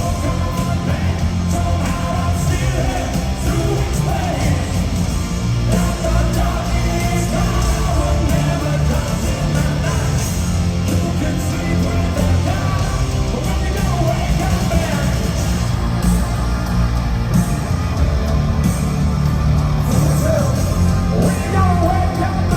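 Live hard rock band playing loud and steady through an arena sound system, with distorted guitars, bass and drums and a sung or shouted vocal over them, heard as a recording from the crowd with the hall's echo.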